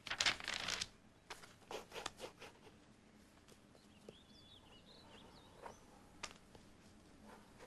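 A loud burst of noise lasting under a second, then a few shorter ones, followed by faint high chirps and a single click.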